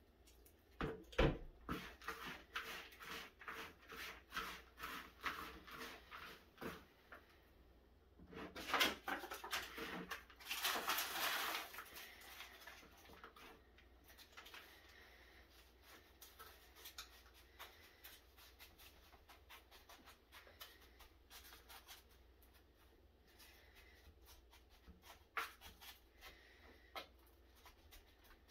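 Hands working moist potting soil in a plastic tub: a run of regular rustling strokes at first, a louder rustling stretch around ten seconds in, then softer scattered rustles and taps as soil is pressed into a plastic seed tray.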